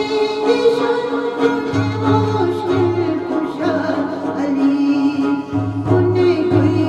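A woman singing a Burushaski ginan, an Ismaili devotional song, over instrumental accompaniment.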